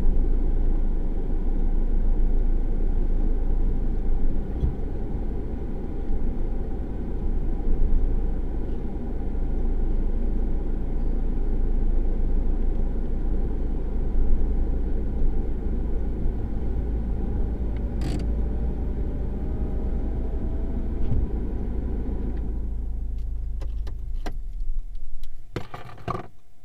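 Car engine and road rumble picked up by a dashcam inside the cabin while driving slowly. About 22 seconds in, the rumble dies down as the car comes to a stop, and a few sharp clicks follow near the end.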